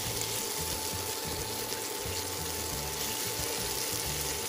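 Onions and sliced mushrooms sizzling steadily in hot olive oil in a pan as they are stirred with tongs.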